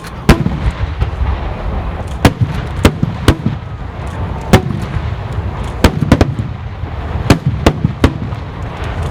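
Aerial fireworks shells bursting: about a dozen sharp bangs at irregular intervals, some in quick succession, over a continuous low rumble of the barrage.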